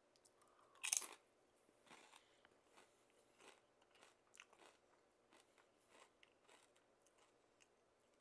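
A person biting into a thick Lay's kettle-cooked potato chip loaded with dip: one loud crunch about a second in, then fainter crunches as it is chewed, every half second or so.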